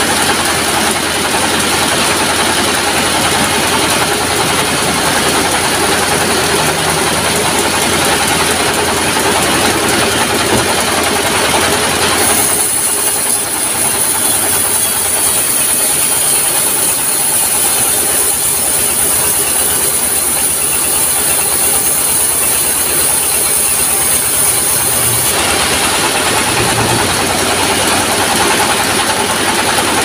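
Horizontal single-cylinder diesel engine running steadily under load, driving a sawmill band saw while a log is fed through the blade. A higher hiss stands out for about thirteen seconds in the middle.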